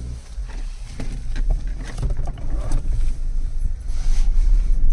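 Car cabin on a rough dirt road: a low rumble of engine and tyres with scattered knocks and rattles, growing louder about four seconds in.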